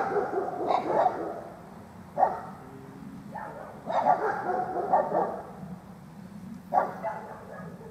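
Black Labrador retriever barking in single barks, one every second or two, about six in all.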